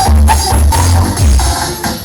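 Loud electronic dance music with heavy bass, played through a large carnival sound system; the bass drops out briefly near the end.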